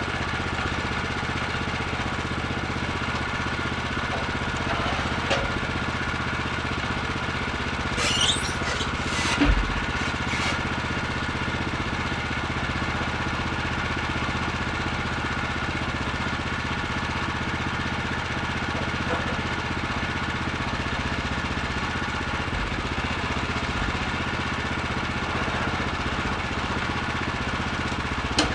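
Woodland Mills HM126 portable sawmill's gas engine idling steadily, not cutting. A few short knocks come about eight to ten seconds in.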